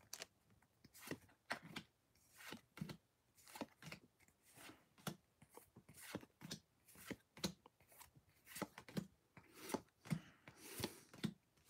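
Pokémon trading cards slid one behind another in the hands while being looked through: faint papery flicks and rubs, irregular, about two a second.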